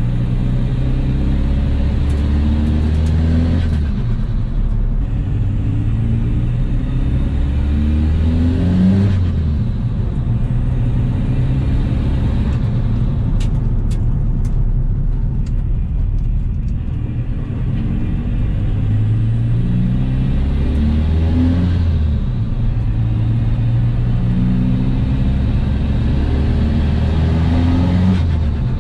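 Volkswagen Polo TDI turbo-diesel engine pulling hard under acceleration. Its pitch climbs over a few seconds and then drops back at each gear change, several times over.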